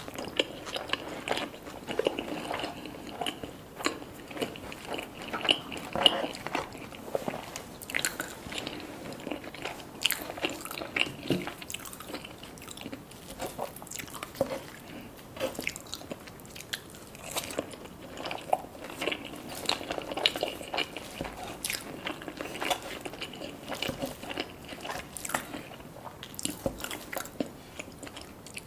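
Close-miked eating: bites and chewing with irregular crunches and wet mouth sounds, on poutine and a toasted bacon avocado sandwich.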